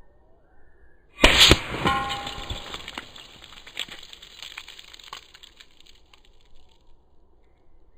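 A .30 caliber AEA SF air rifle shot hitting a block of ice: two sharp cracks about a quarter second apart, then the ice breaking with a brief ringing and scattered crackling and clattering of fragments that dies away over a few seconds.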